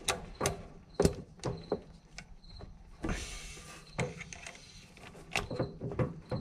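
Sharp clicks and knocks of brass hose fittings being handled and plugged into a gas manifold, about ten in all, with a brief hiss about three seconds in.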